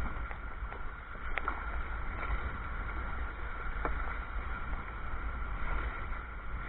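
Water sloshing and splashing against a sea kayak's hull in swells, with an uneven low rumble of wind on the microphone and a few faint ticks.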